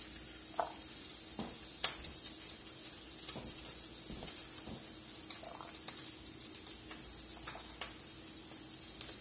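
Ground pork frying in oil in a skillet: a steady sizzle with scattered small pops and crackles.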